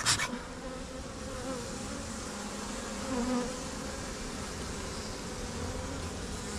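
A honeybee colony humming steadily from an opened hive box, swelling briefly about three seconds in. There is a short clatter right at the start.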